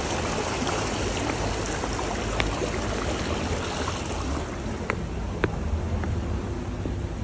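Water of a city stream flowing: a steady rush, with a few faint clicks.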